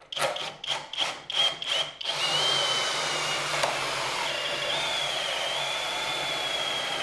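Cordless drill boring into wood with a long spade bit. It goes in about five short bursts over the first two seconds, then runs on steadily under load with a high whine.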